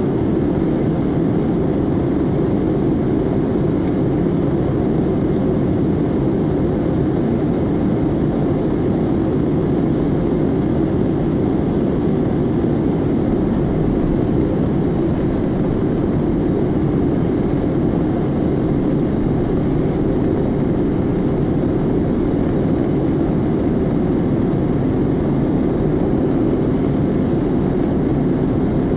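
Steady cabin noise of an Airbus A320neo (A320-251N, CFM LEAP-1A turbofans) in descent: an even, low rumble of engines and airflow heard from a window seat, unchanging throughout.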